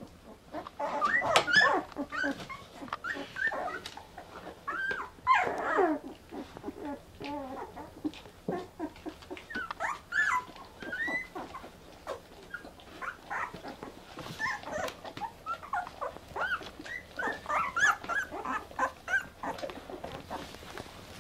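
Newborn Brittany puppies squeaking and whimpering, many short high cries overlapping and rising and falling in pitch, loudest about a second in and again around five to six seconds.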